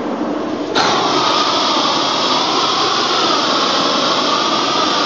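Propane roofing torch burning with a steady hiss, fed from a cylinder on a hand cart; it jumps suddenly louder about a second in. The uploader wonders whether it is running on low propane pressure.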